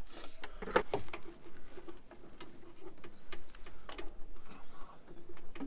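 Irregular metal clicks and clinks of a spanner working a tight bolt on a car.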